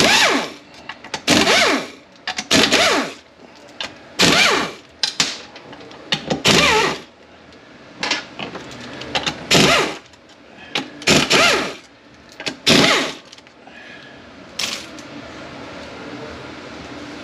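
Power ratchet running out the 13 mm bolts that hold the pump of a 6T45E transmission. It comes in about ten short whirring bursts, each rising and falling in pitch.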